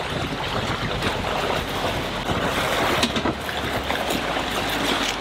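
Steady rush of water from the wake and hull of a sailboat under way.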